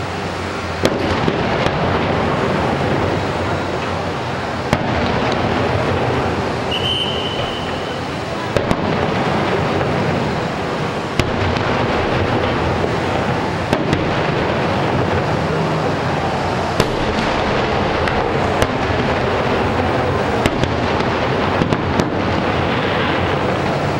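Fireworks show: a steady rolling rumble of bursts with sharp cracks scattered irregularly throughout, and a brief high whistle about seven seconds in.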